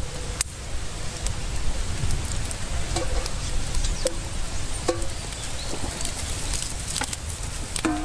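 Open wood fire crackling under a cooking pot, with a few scattered sharp clicks over a steady low rumble.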